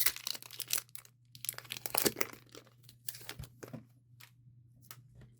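Foil wrapper of a Pokémon TCG booster pack being torn open and crinkled, in two bursts in the first two seconds or so. After that come a few light ticks as the cards are handled, and it goes quiet about a second before the end.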